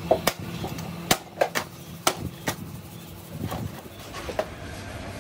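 A hammer striking a black plastic helmet shell set in a crusted mould, knocking it loose. There are about seven sharp blows in the first two and a half seconds, then a few lighter knocks.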